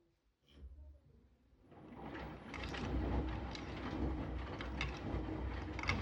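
Electrolux EW6F341PST front-loading washing machine in its main wash: the motor starts with a low hum about half a second in, then the drum turns and the wet laundry tumbles and swishes, building over about a second and then holding steady.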